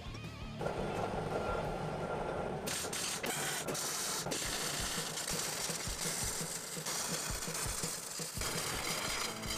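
A metal-cutting band saw running through steel bar stock. About three seconds in it gives way to the crackling, sputtering hiss of electric arc welding on steel, which goes on almost to the end.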